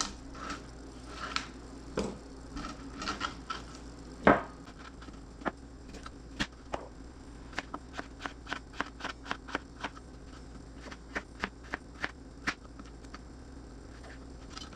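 Chef's knife slicing radishes thin on a plastic cutting board: a run of quick clicks as the blade meets the board, about three a second, with one louder knock about four seconds in.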